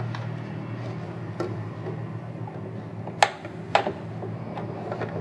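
Electric domestic sewing machine stitching piping onto fabric with a piping foot: a steady low motor hum, easing after about two seconds, with a few sharp clicks from the machine and handling, two of them a little after three seconds.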